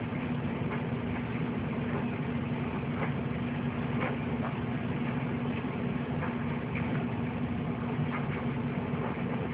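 Steady low machine hum, with faint scattered clicks about once a second.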